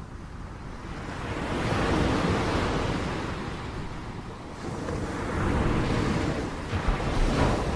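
Ocean surf breaking on a sandy beach, a rushing wash that swells twice, the second surge the louder one near the end.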